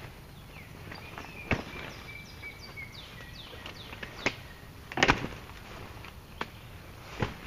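Camouflage pop-up hunting blind being set up: five sharp snaps and knocks as its hubs and walls pop out into shape, the loudest a quick double snap about five seconds in. Birds chirp in the background.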